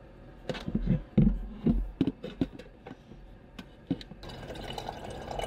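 Clicks and clunks of a stainless electric kettle being handled against a water jug, then, about four seconds in, water running steadily from the jug's spigot into the kettle as it fills.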